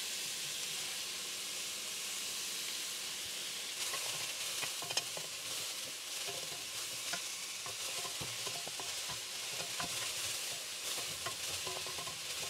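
Shredded cabbage and carrots sizzling as they fry in a pot. From about four seconds in, a wooden spoon stirs and scrapes them, adding irregular clicks and scrapes over the steady sizzle.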